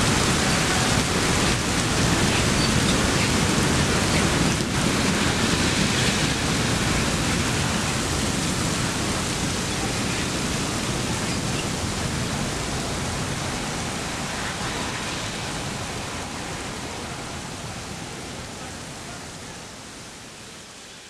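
Steady rushing noise of the live-fire training prop being fought with hose streams, water spraying onto the burning structure; it fades out slowly over the second half.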